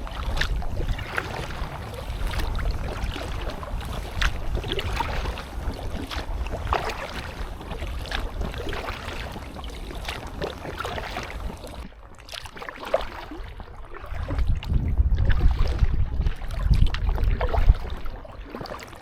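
Paddle blades of an inflatable kayak dipping into lake water, short splashes every second or so, over a low rumble of wind on the microphone that swells about three-quarters of the way through.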